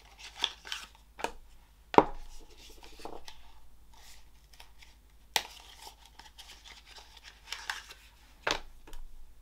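Cosmetic packaging being opened by hand: cardboard and wrapping tearing and rustling, with a few sharp clicks and taps, the sharpest about two seconds in.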